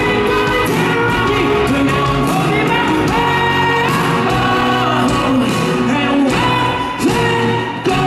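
Live pop-rock band playing, with electric guitar and drums under a male lead singer, heard through the reverberation of a large concert hall.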